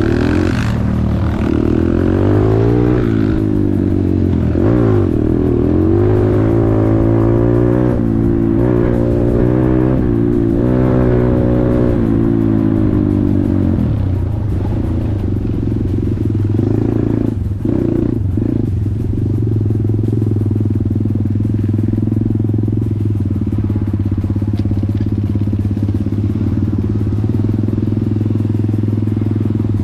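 Motorcycle engine revving up and down repeatedly for about fourteen seconds, then running at a steady speed.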